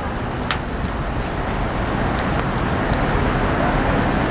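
City street traffic noise: a steady rumble of cars and taxis, slowly growing louder, with a few sharp clicks over it.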